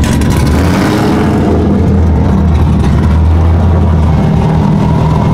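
Drift car engine running loud and steady at constant revs.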